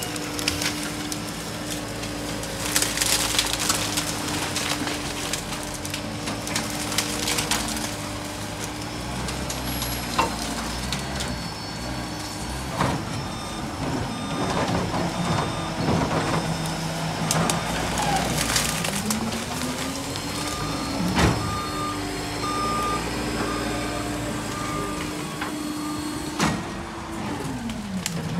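Rear-loader garbage truck and loader tractor working a bulky-waste pile: a steady engine and hydraulic drone with sharp cracks and crunching of branches and debris. The machine pitch sags and recovers a couple of times, and a back-up alarm beeps in a short run about two-thirds of the way in.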